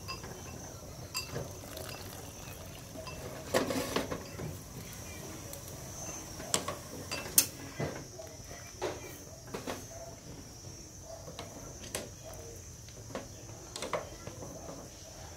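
Scattered clicks and clinks of utensils against a metal pot and a plate as boiled greens are picked out, with a small cluster about four seconds in and the sharpest knock about halfway. Under them runs a steady high chirring of crickets.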